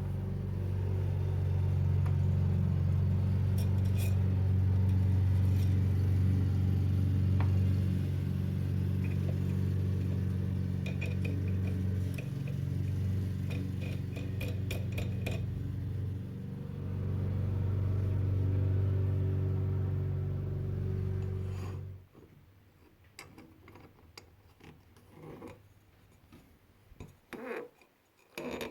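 Wood lathe motor running with a steady hum, with light ticks and clinks of tool contact over it; about 22 seconds in the motor is switched off and only quiet clicks and handling remain.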